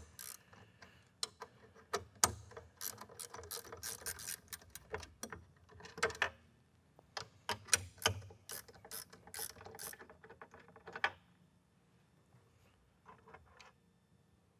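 Ratchet wrench clicking as it loosens the half-inch bolts holding a can seamer's can guide, in quick runs of sharp clicks with metal clinks. The clicking then goes quiet, apart from a few faint clicks near the end.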